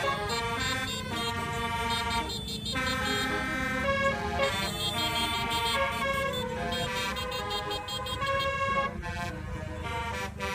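Bus 'basuri' multi-tone horn playing a telolet melody: a run of held horn notes stepping up and down in pitch, over a steady low rumble.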